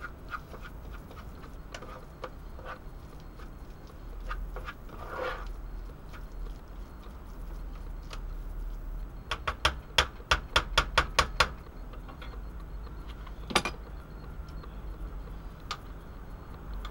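A utensil scraping and clicking against a frying pan as rice and sausage are stirred, with a quick run of about eight sharp taps against the pan about two-thirds of the way through and one more sharp tap soon after. A low rumble runs underneath.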